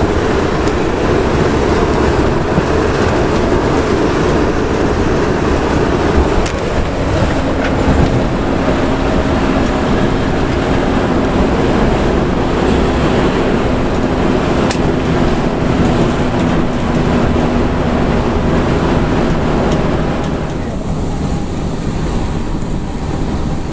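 Bus engine running at cruising speed with heavy tyre and road noise on a wet road, heard inside the cabin; a steady engine hum holds one pitch through the middle, and the hiss eases a little near the end.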